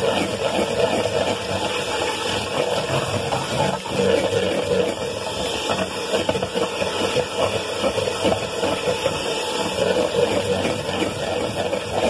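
Electric hand mixer running steadily, its beaters whisking egg whites into foam in a plastic bowl: the first stage of making royal icing.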